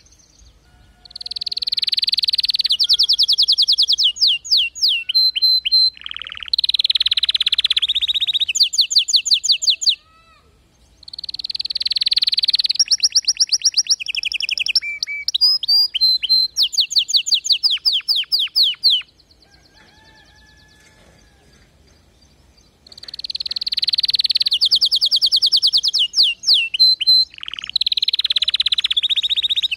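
Domestic canary singing in three long bouts of fast trills and rapidly repeated notes, with a short pause and then a longer one of about four seconds between bouts.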